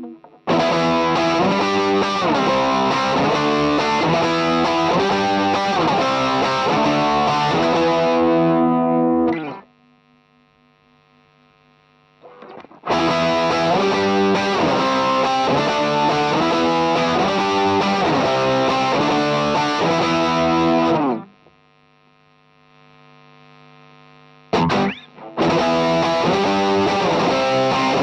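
Electric guitar played through a modded 1985 Boss OD-2 Turbo Overdrive pedal: a distorted, repeating chord riff in three stretches, with pauses of a few seconds between them.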